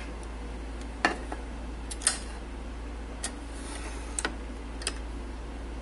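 A few light, scattered clicks and taps from a plastic LED camping lantern being handled, about five in all, over a faint steady hum.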